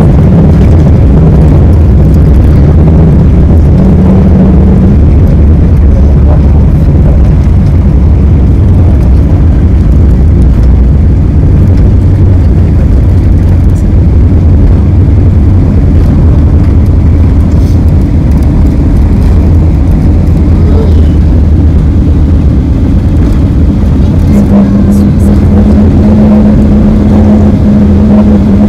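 Cabin noise of a Boeing 777-300ER on its landing roll, with its GE90 engines: a loud, steady low roar and rumble from the engines and wheels on the runway, with a steady hum joining near the end.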